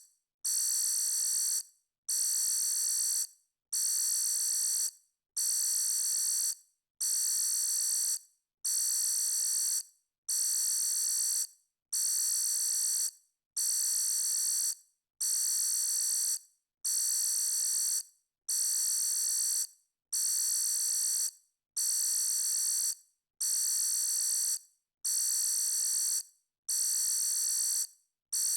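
Electronic alarm beeping: a high-pitched tone in beeps about a second long with short gaps between, repeating at an even pace.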